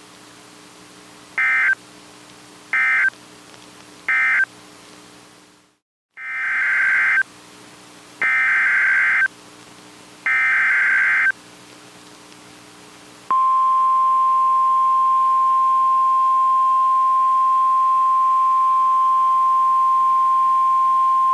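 NOAA Weather Radio alert signalling: three short SAME digital data bursts close out the previous warning, and after a brief dropout three longer SAME header bursts announce the next alert. Then comes the steady single-pitch 1050 Hz warning alarm tone, held for about nine seconds.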